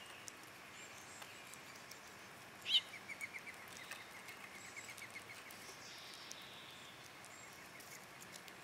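A bird gives one sharp call nearly three seconds in, followed by a rapid trill of about nine notes a second that lasts roughly two seconds. Faint scattered clicks of a grey squirrel chewing its food sit beneath it over a quiet woodland hiss.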